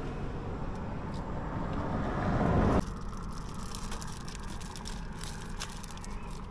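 A road vehicle passing close, its noise growing louder until it cuts off abruptly about three seconds in; a quieter steady low hum follows.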